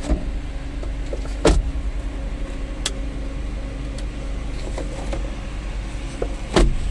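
Van engine running steadily with a low hum, broken by a few sharp knocks or clunks.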